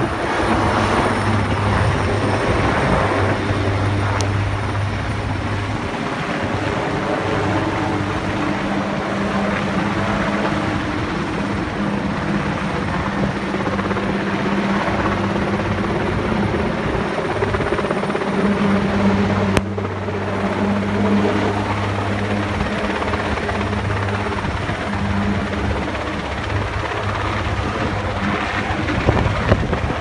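Sikorsky S-58ET cargo helicopter flying overhead with an air conditioning unit slung beneath it on a long line. Its rotor and engine run steadily, with a low hum that swells and fades.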